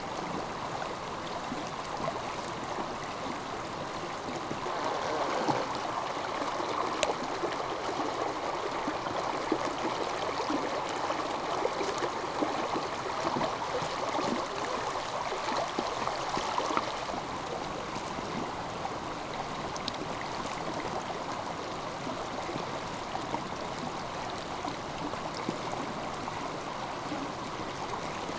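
A stream flowing steadily, a little louder from about five seconds in until around seventeen seconds, with a few faint clicks over it.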